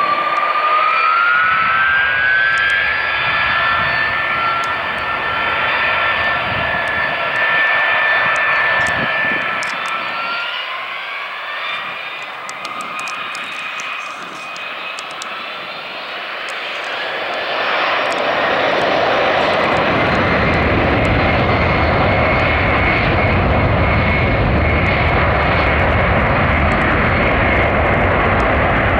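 A DC-10 air tanker's three jet engines running, with a whine that rises in pitch twice. Then, about two-thirds of the way in, a deep rumble builds and holds as power comes up for the takeoff roll.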